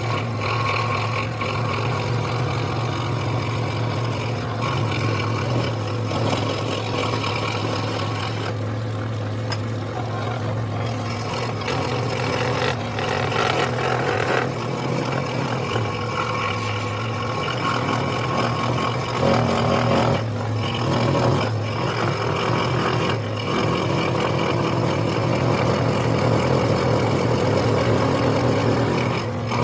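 Scroll saw running, its reciprocating blade cutting through a thick block of wood: a steady low motor hum under a cutting noise that rises and falls as the wood is fed and turned.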